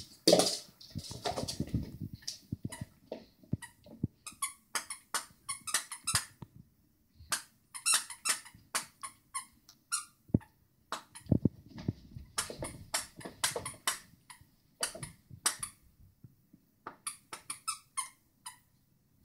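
Dogs biting and chewing squeaky dog toys, making runs of short, high squeaks a few times a second with brief pauses. A few dull thuds come near the start and again about two-thirds of the way through.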